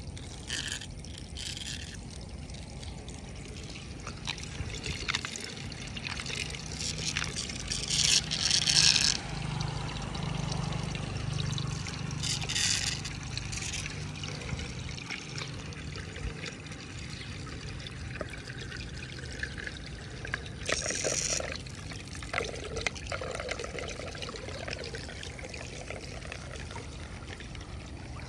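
Muddy floodwater draining down a cleared storm drain, swirling into the drain holes with a steady trickling pour. A few louder splashy surges come through, the biggest about eight seconds in.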